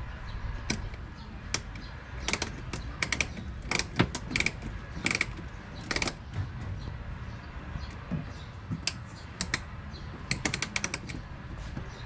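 Short ratcheting Phillips screwdriver clicking in irregular bursts of quick clicks as a screw in a car's wheel-arch liner is loosened.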